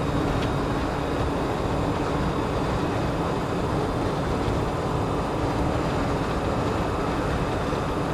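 Land Rover Defender 110 with a 3.9-litre V8 cruising at a steady speed: an even mix of engine, tyre and wind noise that holds constant, with no shifts or revs.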